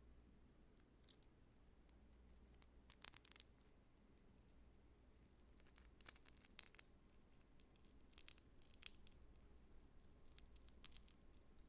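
Faint, crisp crackling and scratching handling sounds in short clusters every couple of seconds, over a low hum.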